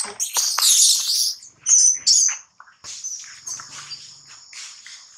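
Baby long-tailed macaque screaming in distress in shrill, high-pitched bursts while an adult grabs it, in two loud spells over the first two and a half seconds. After that a steady high insect drone with scattered faint rustles.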